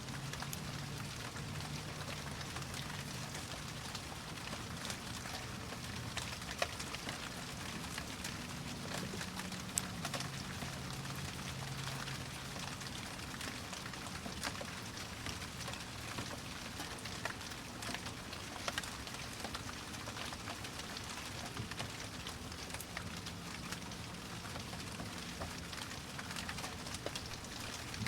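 Steady rain: a dense even hiss with many single drops ticking sharply on top of it.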